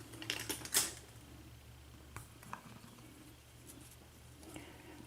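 Light metallic clicks and clinks of small lock parts being handled as the top pins of a disassembled Marks KIK lock cylinder are taken out. There is a quick cluster in the first second, then a few single clicks.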